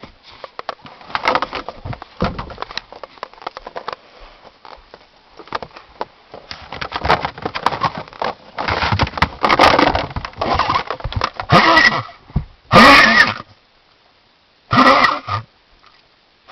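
A dog coughing in repeated fits, ending with three short, loud, separate bursts. This is a cough of unknown cause that the owner fears is a bone stuck in the airway or pneumonia.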